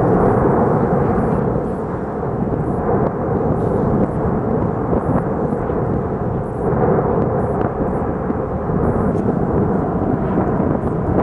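Volcanic eruption close to the vent: powerful lava fountains from the main vent make a loud, continuous rumble that swells and eases every few seconds.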